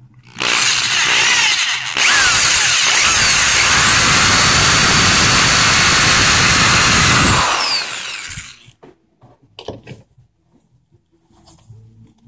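Handheld power drill with a twist bit boring out a stripped screw hole in a wooden rifle stock's butt, enlarging it to take a dowel plug. It runs briefly about half a second in, then steadily for about five seconds before winding down. A few light taps follow near the end.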